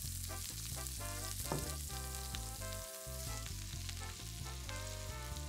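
Sliced onions, red peppers and mushrooms sizzling in hot bacon fat in an enamelled cast-iron braiser as more sliced vegetables are tipped in. Background music with a stepping bass line plays over the sizzle.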